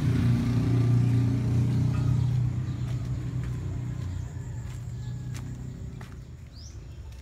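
A motor vehicle's engine hum, loudest at first and fading steadily over several seconds as it moves off. A bird chirps once near the end.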